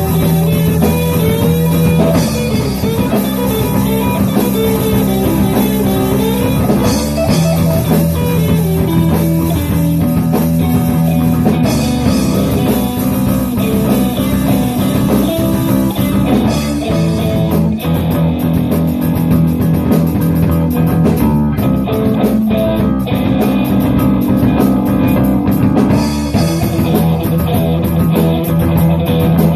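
Rock music played on guitar, with drums, held steady and continuous.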